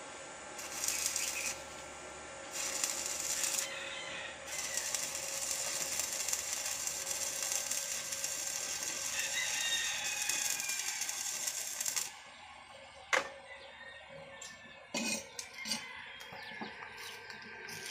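Stick arc welding with an INGCO inverter welder: two short arc strikes, then the arc runs steadily for about seven seconds and cuts off suddenly. A few sharp taps follow near the end, a chipping hammer knocking slag off the fresh weld.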